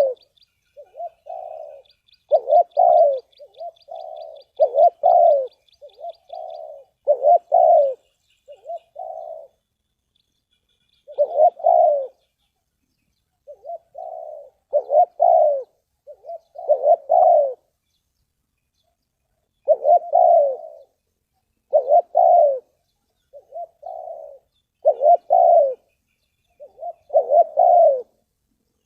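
Spotted dove cooing: repeated phrases of two or three low, hollow coo notes, one phrase every couple of seconds with short pauses between. A faint, rapid high chirping runs alongside for the first six seconds or so.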